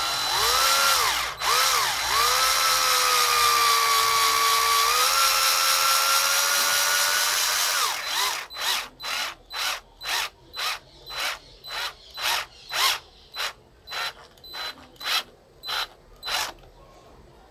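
Black+Decker cordless drill-driver running steadily while driving a wood screw into a plank, its whine dipping briefly twice early on and sagging a little in pitch under load. From about eight seconds it switches to a run of about fourteen short bursts, roughly two a second, as the screw is seated.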